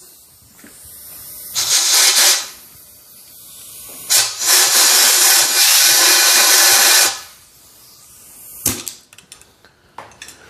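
Compressed-air blow gun hissing into a shotgun barrel's muzzle to clear chips and cutting fluid from freshly tapped choke threads: a short blast, then a longer blast of about three seconds. A sharp click follows near the end.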